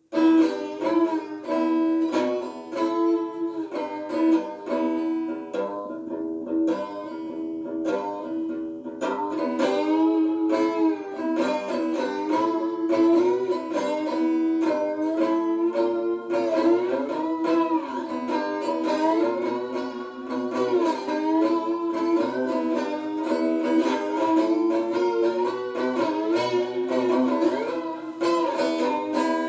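Three-string electric diddley bow (cigar box slide guitar) played through a small portable amp on its clean setting. Slid notes bend up and down over a steady droning low string.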